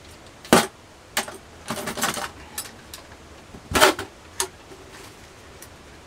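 Stored gear being rummaged through by hand: a run of sharp knocks and clanks of hard objects, with two louder ones about half a second in and just under four seconds in.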